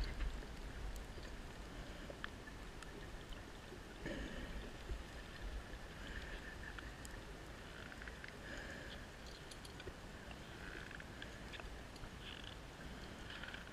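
Faint underwater ambience: a steady low rumble with scattered sharp clicks and short soft hissing swells every second or two.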